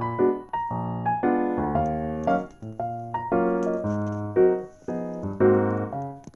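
Background piano music: a melody of separate notes, each struck and fading, several a second.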